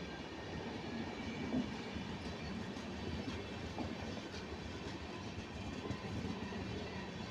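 Indian Railways LHB passenger coaches running past on the track: a steady rumble of wheels on the rails, with a few faint clicks, as the last coaches of the express go by.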